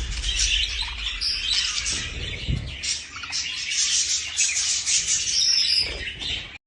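Many small birds chirping at once, short overlapping high calls with no pause, cutting off suddenly just before the end.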